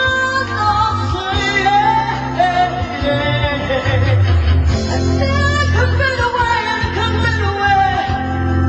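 Two female vocalists singing a slow soul ballad live, backed by electric keyboard, with sustained low bass notes under the bending vocal lines.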